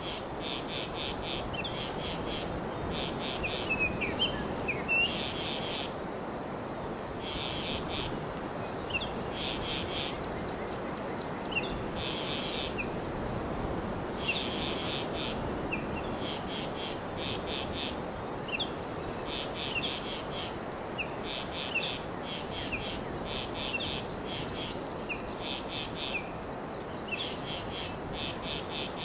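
Insects calling in repeated groups of rapid high-pitched pulses, each group about a second long, with short bird chirps scattered between them over a steady low rushing background.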